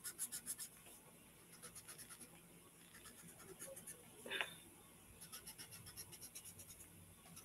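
A paper blending stump rubbed quickly back and forth on drawing paper, blending coloured pencil. It comes as three faint runs of short strokes, about eight a second, with a brief louder sound about four seconds in.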